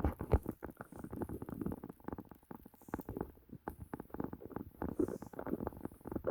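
Irregular crunching and scuffing of footsteps in fresh snow close to the microphone, with no steady rhythm.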